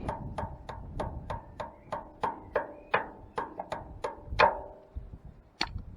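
Hammer blows on the metal brake drum of a Ferguson TE20 tractor, a quick run of about three to four strikes a second, each ringing briefly, followed by one more strike after a short pause. The drum is being knocked to free it, but it is held by a seized brass bushing.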